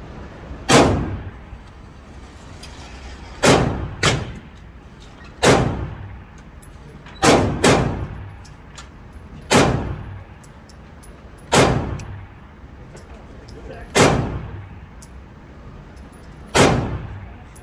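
Smith & Wesson M&P9 Shield Plus 9mm pistol firing about ten shots at an uneven pace, some in quick pairs, each shot echoing off the walls of an indoor range.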